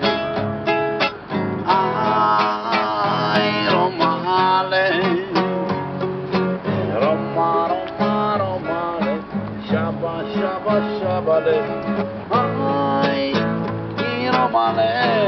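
Acoustic guitar strummed in a steady rhythm while a man sings long, wavering notes over it, with stretches of guitar alone in between.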